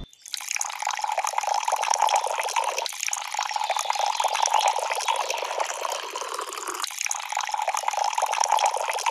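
Water trickling and splashing down a small toy water slide into a shallow pool.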